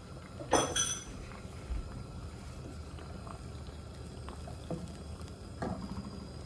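Beaten egg cooking in an oiled nonstick pan over a gas burner, with a low steady rumble and faint frying noise. A sharp clink comes about half a second in, and near the end a wooden spatula scrapes and knocks through the egg in the pan.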